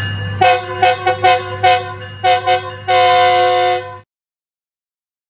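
Metrolink diesel locomotive's multi-note air horn sounding a run of short blasts, about five quick ones, then two more, then one long blast of about a second. The locomotive's engine hums steadily underneath, and the sound cuts off abruptly near the end.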